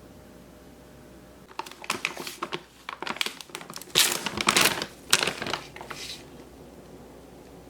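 Crinkling and rustling handling noise in irregular bursts from about a second and a half in until about six seconds in, loudest near the middle.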